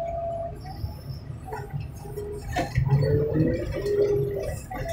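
Heavy junkyard machinery running with a steady low rumble, with a few short, wavering squeaky tones from about the middle on.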